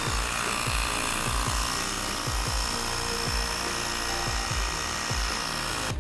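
Electric tire pump running for about six seconds to inflate a 20x4 fat tire's inner tube, a steady high whine over a hiss, switched on and off abruptly. Background music with a steady beat plays underneath.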